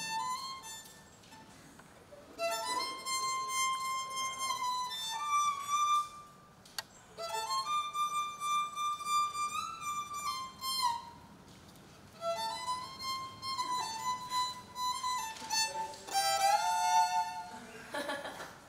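Solo violin playing slow, sustained high notes with small slides between pitches. It plays several phrases of a few seconds each, separated by short pauses.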